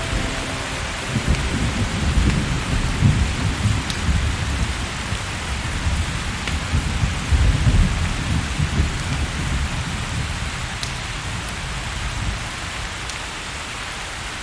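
Steady heavy rain with rolling thunder. The rumble swells twice, about two seconds in and again about halfway, then eases.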